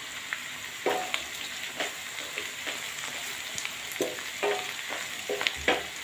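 Chopped onions, garlic, ginger and green chillies sizzling in hot oil in a kadai, with a spatula scraping against the pan about eight times as they are stirred.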